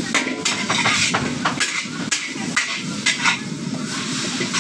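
A long metal ladle clanking and scraping irregularly against a large metal wok as noodles are stir-fried, over the steady hiss of the frying.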